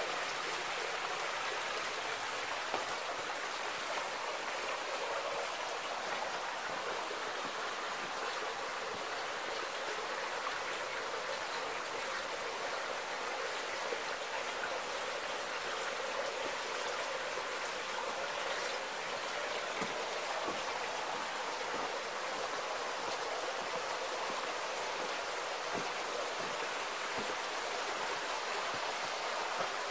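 Steady rushing of running water, an even hiss with a few faint ticks.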